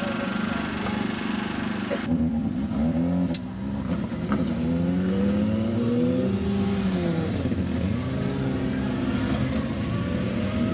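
Racing motorcycle engine accelerating hard through the gears: from about two seconds in, its pitch rises and drops again with each shift, over a steady rumble.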